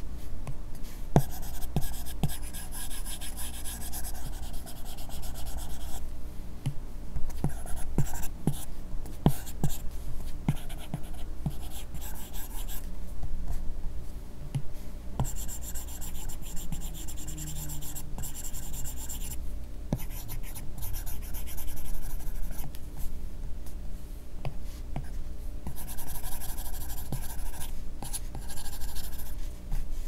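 Apple Pencil's bare tip scratching and tapping on an iPad Pro screen covered with a paper-texture film, as brush strokes are laid down. Runs of quick repeated scratching come about a second in, around halfway, and near the end, with light tip taps between them.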